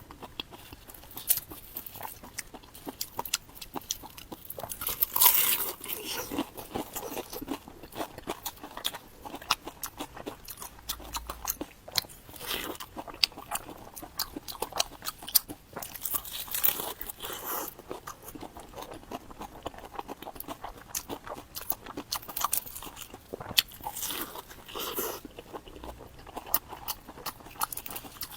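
Crunchy food being bitten and chewed close to the microphone, with many sharp, irregular crunches and crackles.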